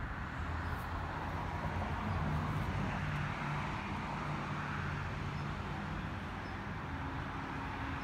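Steady outdoor background noise: a low, even hum with a hiss over it and no distinct events.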